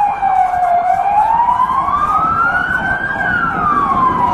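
An emergency vehicle's siren wailing in a slow rise and fall: it drops to its low point under a second in, climbs for about two and a half seconds, then falls again.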